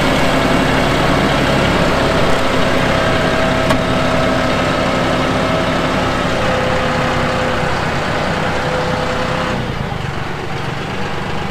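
John Deere 5055E tractor's three-cylinder diesel engine running steadily while working dirt, with its pitch shifting a little. It eases off and gets quieter about nine and a half seconds in.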